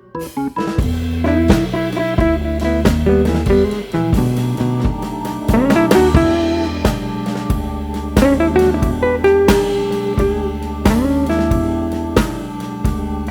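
Background music: a guitar over a drum beat, in a bluesy style, with several notes bending upward.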